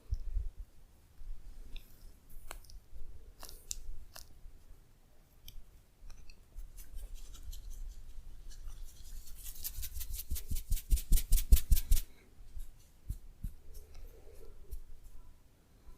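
Hands at work in a massage: scattered light clicks and rubbing, then about nine seconds in a fast run of sharp taps, roughly eight a second, that stops suddenly after a couple of seconds.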